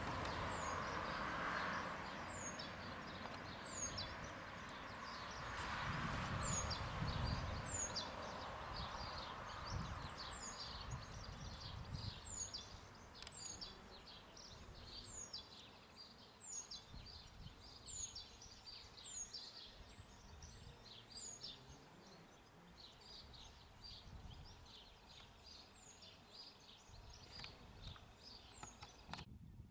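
Small birds singing outdoors: many short, high chirps repeating throughout, over a soft rushing background noise that fades after the first ten seconds or so.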